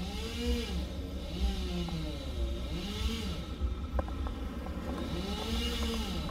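Car driving slowly, heard from inside the cabin: a steady low road rumble, with a pitched sound repeatedly sliding up and down over it.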